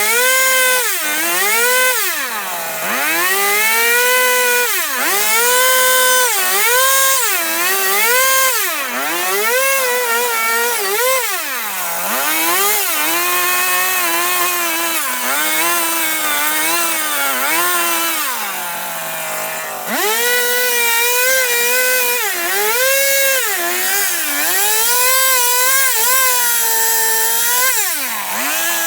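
Two-stroke chainsaw cutting into wood during carving: the engine is revved over and over, its pitch sagging and climbing back as the chain bites, and it drops back toward idle several times, about 3, 12, 19 and 28 seconds in.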